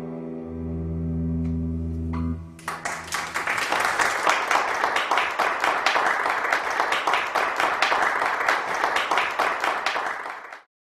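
An acoustic guitar's final notes ring and fade. Then, about two and a half seconds in, audience applause starts and carries on until it cuts off abruptly near the end.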